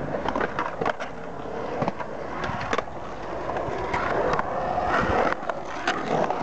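Skateboard rolling on concrete: the steady noise of the wheels on the bowl's surface, broken by several sharp clacks of the board.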